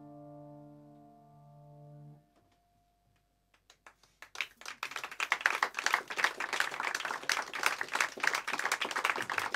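Final piano chord held and ringing, damped about two seconds in. After a short pause the audience starts applauding, building into dense clapping.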